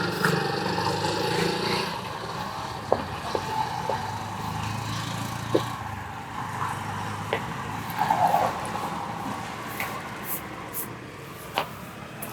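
Steady rumble of street traffic, with scattered short, sharp taps and clicks.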